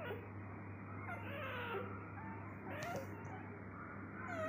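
Newborn golden retriever puppy whimpering while nursing: several short, thin squeaks that bend up and down in pitch, over a steady low hum.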